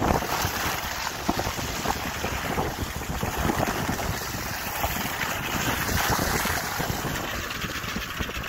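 Wind rushing over a phone's microphone held out the window of a vehicle driving along a muddy dirt track, with the tyres splashing and spattering through puddles and wet ruts.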